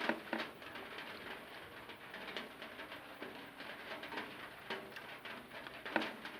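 Close-up eating sounds: wet chewing and lip smacks while eating rice with egg curry, a run of soft clicks with a louder smack just after the start and another about six seconds in.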